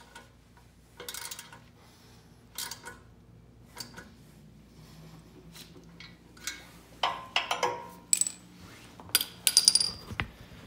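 Steel hand tools and hardware clinking against the steel hitch plate and mower frame as the hitch bolts are worked with wrenches: scattered short metallic clinks and clanks, some ringing briefly, the loudest cluster near the end.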